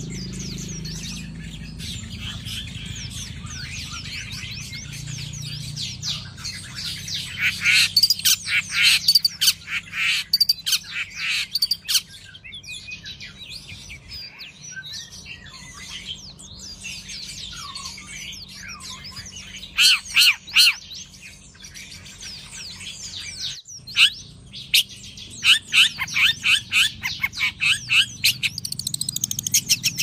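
Long-tailed shrike singing in bursts of rapid, high chirping notes, with quieter stretches between, over a steady low hum.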